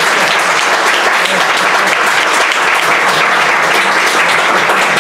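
An audience applauding at the end of a talk: steady, dense clapping throughout.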